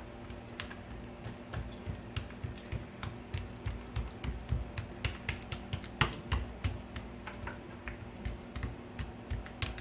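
Hands patting and pressing a piece of soft, buttered dough flat on a surface: an irregular run of soft taps and low thuds, a few a second.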